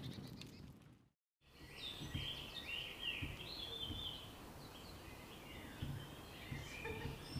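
A campfire crackles briefly and fades out, cutting to a second of dead silence. After that, several woodland songbirds sing in a morning chorus of overlapping chirps and short phrases, with a few soft low thumps underneath.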